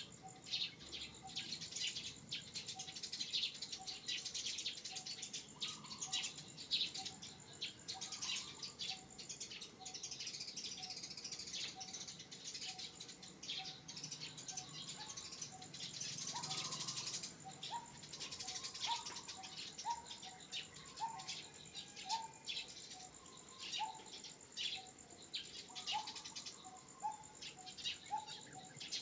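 Outdoor ambience of many birds chirping, with a short call repeated about once a second and an insect's steady high-pitched buzz.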